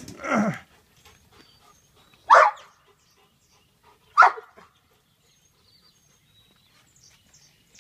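A dog barking in single barks: a lower, falling one at the start, then two loud, sharp barks about two seconds apart.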